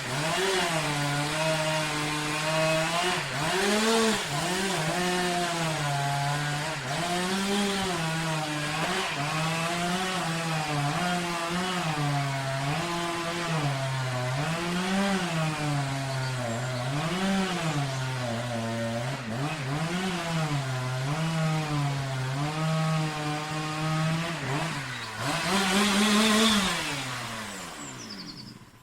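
Chainsaw running, revving up and down again and again at an uneven pace. After a last high rev near the end it slows, falling in pitch, and dies away.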